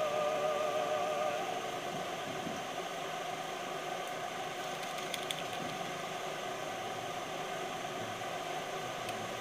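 Soft background music: a wavering melody fades out in the first second or two, leaving a quieter steady backdrop.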